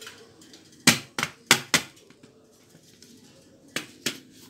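Sharp knocks of a Kyocera TASKalfa 1800 drum unit's plastic housing being tapped on the bench to shake out waste toner. There are four quick knocks about a second in and two more near the end.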